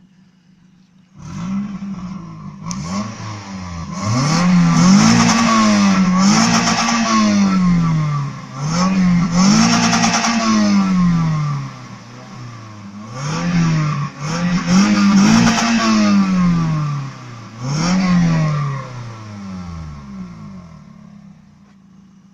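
Toyota Celica 1.8 VVT-i four-cylinder (1ZZ-FE, 143 CV) on its stock exhaust, revved repeatedly while stationary, about nine rises and falls in pitch with idle between. Some revs reach the rev limiter, which cuts in at 7000 rpm.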